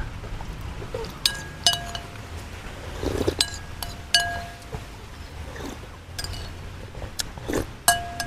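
Metal spoon clinking against a ceramic porcelain bowl while eating porridge. There are several separate clinks, each leaving a short bright ring.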